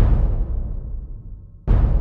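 Epic background music with heavy drum hits, each dying away over about a second: one at the start and another near the end.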